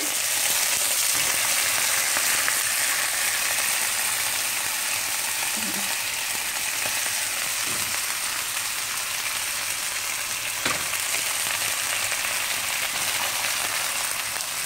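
Chicken pieces in teriyaki marinade sizzling steadily as they fry in a hot non-stick wok with a little oil. There is a single sharp click about ten and a half seconds in.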